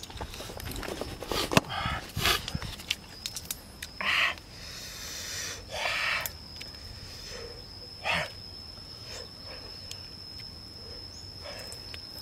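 A person eating close up: a run of sharp clicks and cracks in the first couple of seconds, then several short, forceful breaths blown out through the mouth. A thin, steady high whine runs underneath from about three seconds in.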